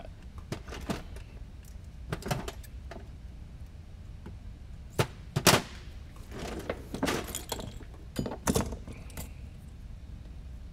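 Scattered clicks, taps and rustling of small parts and materials being handled on a workbench, with a few sharper snaps a little past halfway, over a steady low hum.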